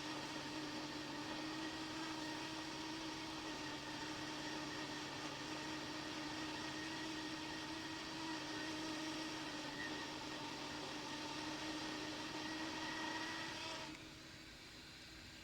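Hot air rework blower running steadily, a fan whir and air hiss with a steady hum, while heating the SI5351 chip to lift it off the board. The sound drops away near the end.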